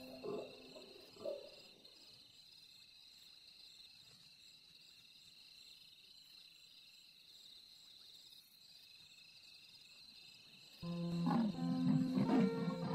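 Leopard mother calling for her cub: a quick series of short calls, about half a second apart, that stop about a second and a half in. Near the end, soft music with steady held notes comes in.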